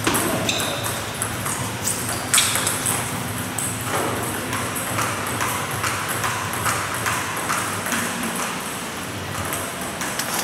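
Table tennis ball clicking off paddles and the table, with a sharp knock about two seconds in, then a run of lighter ball clicks at about two or three a second.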